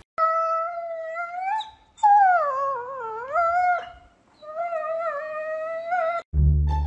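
A small long-haired dog howling: three long, high howls, the first rising at its end and the second dipping down and rising again. Music cuts in at the very end.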